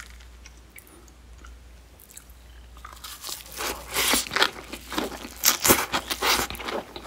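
Biting into and chewing a mouthful of lettuce wrap: crisp leaf crunching loudly between the teeth in quick irregular crunches, starting about three seconds in.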